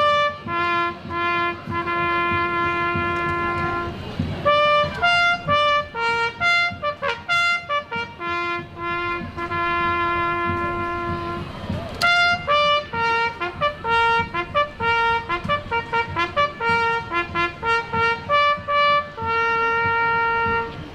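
Brass instruments playing a tune as one melodic line, quick runs of notes broken by long held notes.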